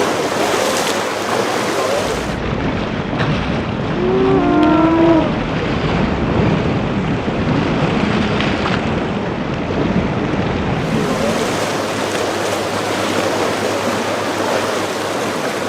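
Surf and rushing water with wind buffeting the microphone, and a short shout of a person's voice about four seconds in.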